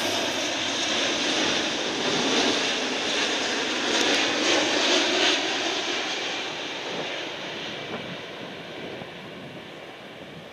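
Boeing 787 airliner on final approach for landing, its jet engines making a steady broad roar. The noise is loudest about four to five seconds in as the plane passes close, then slowly fades.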